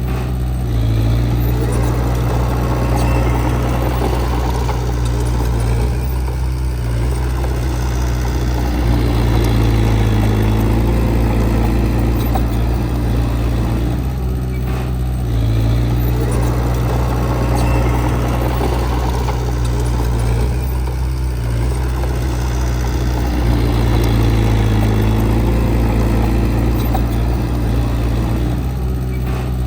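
Diesel engine of heavy earthmoving machinery running steadily, its note easing and building again about every seven seconds in a repeating work cycle.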